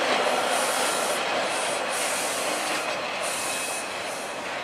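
TTC T-1 subway train rolling past on surface track, its wheels and running gear making a steady rumbling noise that fades as the last car goes by. A high hiss comes and goes over it.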